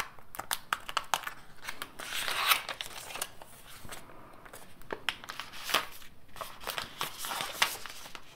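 Packaging being handled during a phone unboxing: the crinkle and rustle of a printed card sleeve and a thin clear plastic case coming off the phone, with many small scattered clicks and taps. The densest rustling comes about two seconds in.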